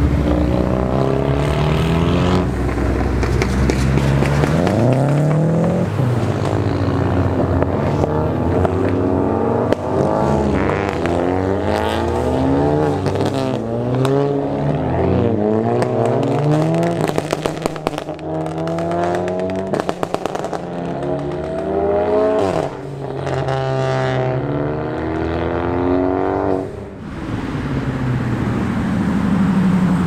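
Sports car engines revving hard, the pitch climbing and dropping again and again, with one long high rise near the end.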